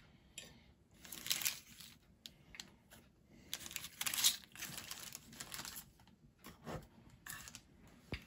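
Baking parchment crinkling in bursts as a slab of chocolate tiffin is broken into pieces by hand, loudest about a second in and again around four seconds in, with a few sharp clicks near the end.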